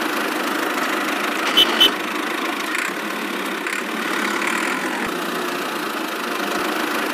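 Tractor engine running steadily at idle, with two short sharp clicks about a second and a half in.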